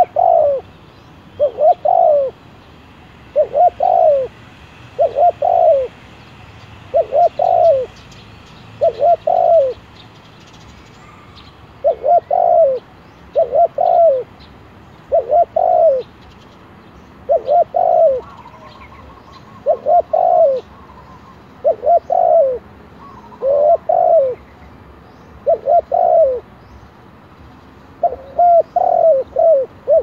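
Spotted dove cooing, a tethered decoy bird: a short two- or three-note coo repeated about every two seconds, with a brief pause about ten seconds in. Small birds chirp faintly in the background.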